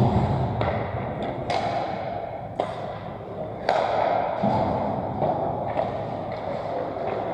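Hockey skate blades scraping and carving on the ice close by, with a dull thud right at the start and several sharp knocks spread through the first four seconds.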